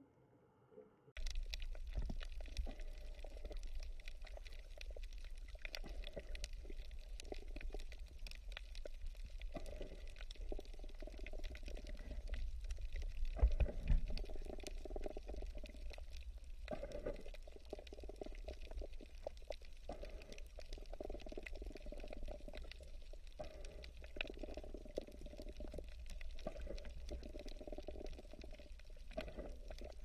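Water bubbling and gurgling over a steady low rumble, with constant fine crackling; it starts abruptly about a second in.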